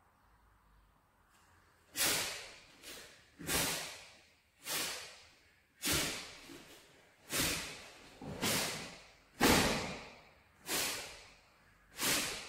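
Sharp swishing snaps of a Taekwon-do uniform with each fast technique of a pattern, about nine of them starting about two seconds in, roughly one every second and a bit, each cutting in sharply and fading quickly.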